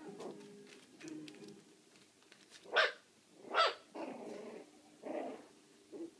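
Four-week-old puppies barking: two loud, sharp barks near the middle, with a few softer barks and yaps around them.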